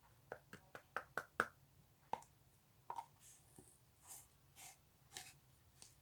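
Slime being squeezed and poked by hand: a quick run of sharp clicking pops in the first second and a half, then a few scattered pops and softer squishing sounds.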